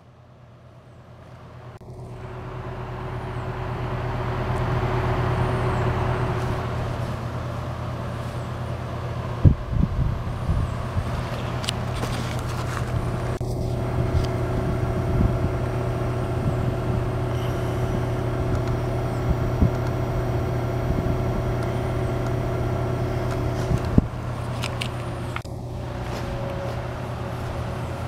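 Outdoor unit of a Savaire ductless mini-split heat pump running: the fan's rushing air over a steady low hum, with a few steady tones from the compressor. The sound builds up over the first five seconds or so, as when the unit starts up, then holds steady.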